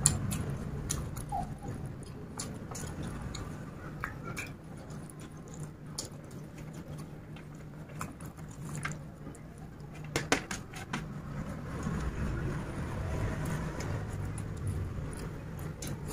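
A person chewing a mouthful of chicken biryani eaten by hand: scattered wet mouth clicks and smacks, a cluster of them about ten seconds in, over a steady low hum.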